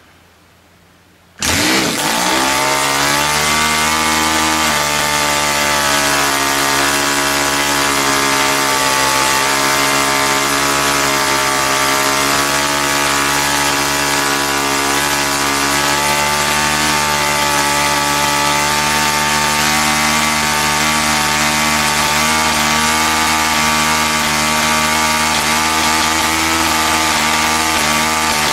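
Home-built model diesel engine, a small two-stroke compression-ignition engine turning a propeller, catches on an electric starter about a second and a half in and then runs loudly and steadily at high speed. The newly built engine is being run in.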